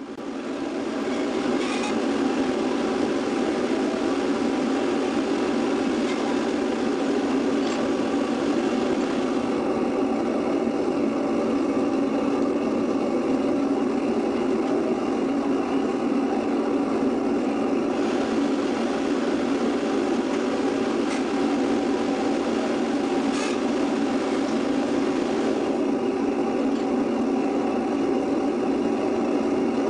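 Small foundry furnace running at full fire while melting aluminium: a steady, loud rush of forced air and flame with an even hum, broken only by a few faint ticks.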